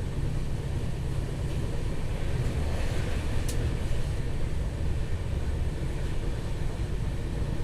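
A moving train running with a steady low rumble, heard from on board. A single sharp click comes about three and a half seconds in.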